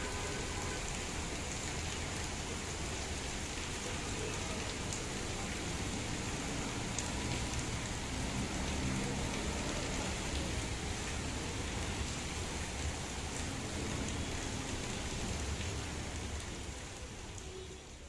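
Heavy rain pouring steadily onto wet ground and puddles, with a few sharp ticks now and then; it fades out near the end.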